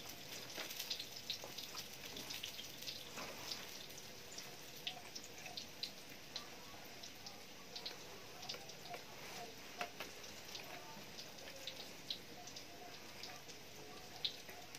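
Handling noise from a plastic tripod pan head being turned and worked by hand: faint, scattered small clicks and light rustling.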